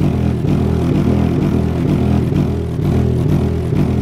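A Rock Series 6.5-inch mini subwoofer in an open cardboard box plays a music track's bass line loudly, repeated low notes stepping in pitch. It is being driven at about 336 watts RMS into 3.4 ohms, with the box there to keep the cone from over-excursion.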